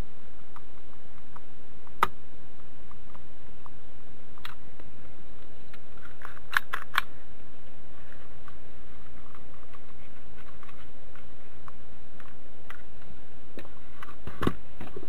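Plastic case of a clamp meter being handled and fitted back together: a few sharp clicks, two in quick succession about seven seconds in, over a steady hiss.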